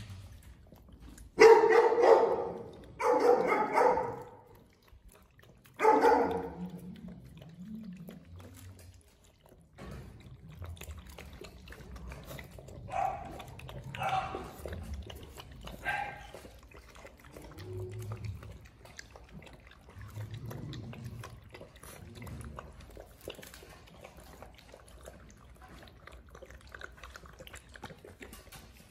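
Presa Canario puppies barking and growling at each other while squabbling over a shared food bowl. There are three loud outbursts in the first six seconds, then fainter, shorter sounds from them.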